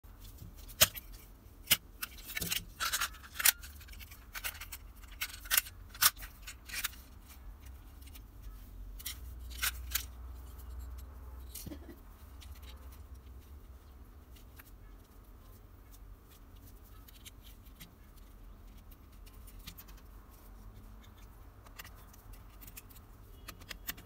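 Pliers snipping and stripping electrical wire, with clicks from handling a plastic switch-socket plate. A cluster of sharp snips comes in the first seven seconds or so, then only scattered faint clicks.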